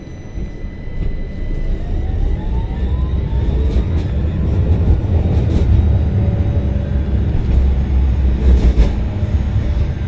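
Heard from inside a moving vehicle: a low rumble that grows louder as it picks up speed, with a motor whine rising in pitch over the first few seconds. A few short knocks and rattles come through the middle and towards the end.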